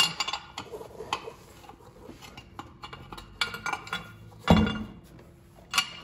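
Metal clinking and rattling as the spare tire's hoist cable and holding bracket are worked through the center hole of the steel wheel, in scattered short clicks with one heavier knock about four and a half seconds in.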